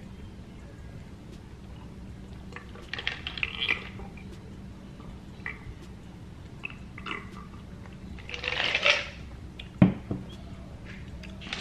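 A person gulping a drink from a glass: wet swallowing and slurping sounds around three seconds in and again, louder, around eight to nine seconds. A sharp knock follows near ten seconds, as the glass is set down on the table.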